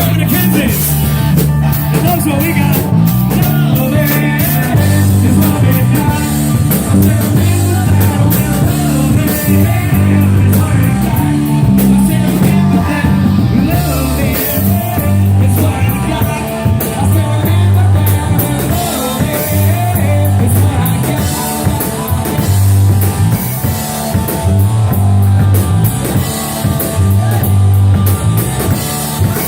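Live rock band playing loud, with drum kit, bass and guitar and some singing.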